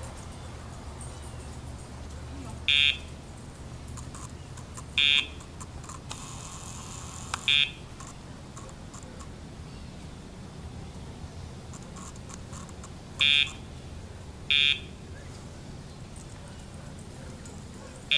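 Short electronic buzzes from a Dogtra remote dog-training collar's pager, the cue that calls the dog's attention to the handler. About five brief buzzes at uneven intervals, with another at the very end.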